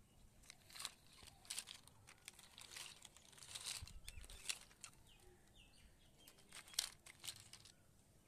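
Small plastic toy trucks and building blocks being handled: scattered light clicks and knocks of plastic on plastic, with rustling against a cloth.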